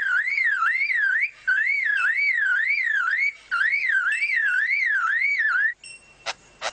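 Male superb lyrebird mimicking a car alarm: a wailing siren tone that sweeps up and down about three times a second, in three long bursts with short breaks between them. A single sharp click follows near the end.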